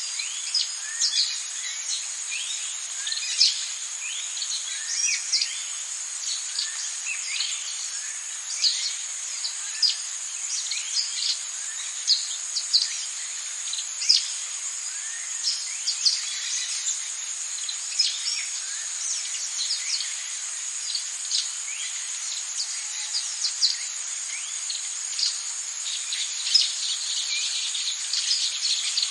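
Rainforest ambience: a steady, high insect drone with many short, falling bird chirps and calls over it.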